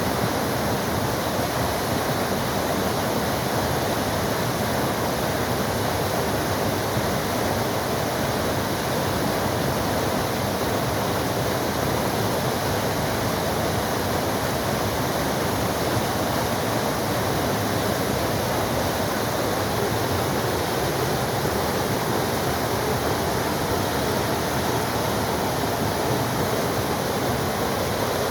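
Forest waterfall rushing steadily: a constant, even roar of falling water.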